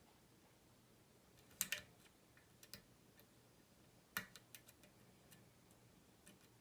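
A lock pick working the pins of a Goal S five-pin lock: scattered light metallic clicks and ticks. There is a pair about one and a half seconds in, then a sharper click just after four seconds followed by a quick run of small ticks.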